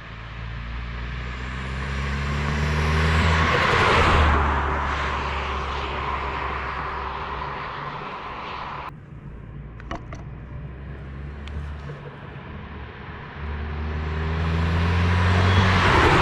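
Volkswagen Scirocco 2.0 TSI's turbocharged four-cylinder pulling hard through an open air intake, its pitch rising. About four seconds in it lifts off with a short hissing burst of turbo flutter (stututu). It runs on more steadily, then accelerates again and flutters once more near the end.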